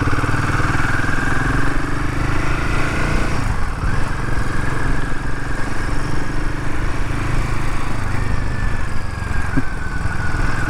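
Royal Enfield Himalayan 450's single-cylinder engine running under way as the motorcycle is ridden, with a brief dip in the engine note about three and a half seconds in. The bike goes over a pothole without the knock its steering-head bearing (cone set) usually gives there.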